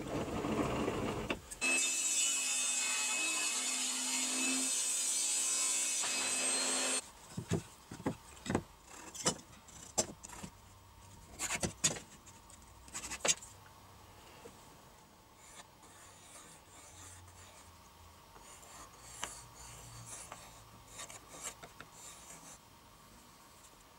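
A loud, steady, hum-laden noise for about seven seconds that cuts off abruptly. It is followed by light knocks and taps of a metal ruler and pencil on an MDF board, then the faint scratching of a compass point and pencil scribing circles into the MDF.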